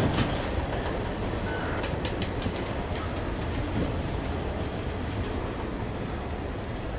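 Freight train cars, tank cars and a boxcar, rolling past with a steady rumble of wheels on rail and a few clicks of wheels over rail joints, easing slightly in loudness.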